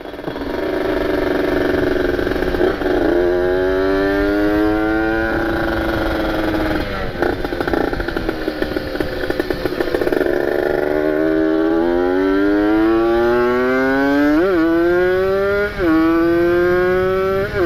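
Kawasaki Ninja RR's ported 150 cc two-stroke single-cylinder engine under way, revving hard. Its pitch climbs, drops sharply at an upshift about five seconds in, sinks as the throttle eases through the middle, then climbs again through two quick shifts near the end, over wind rumble on the microphone.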